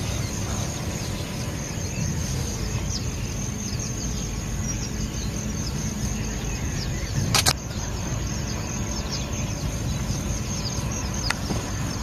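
Steady low outdoor rumble with faint, rapid high ticks scattered through it. A sharp click comes about seven and a half seconds in, and a fainter one near the end.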